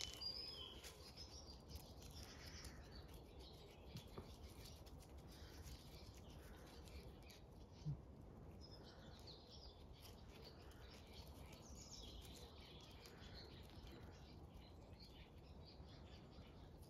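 Faint birdsong in the background: scattered high chirps from small birds over a near-quiet outdoor background, with one brief low thump about eight seconds in.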